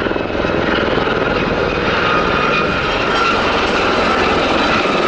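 Westland Gazelle helicopters flying a display: a steady, rapid rotor chop with a high whine above it.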